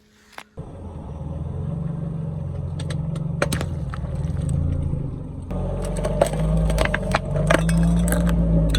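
Car engine running low and steady, starting abruptly about half a second in and growing louder past the middle, with several sharp cracks and snaps under the tyres.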